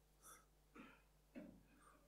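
Near silence: room tone with three faint short sounds about a third of a second, just under a second and about a second and a half in.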